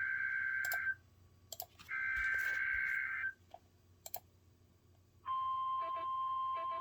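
Emergency Alert System SAME header: two bursts of screeching digital data tones, the first ending about a second in and the second lasting about a second and a half, with a few sharp radio clicks between them. About five seconds in, the steady single-pitch 1050 Hz NOAA Weather Radio warning alarm tone starts, the signal that a warning message is about to follow.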